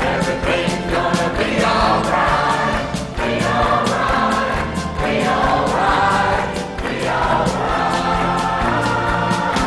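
Choir singing an upbeat gospel song with a live band, the accompaniment keeping a steady beat.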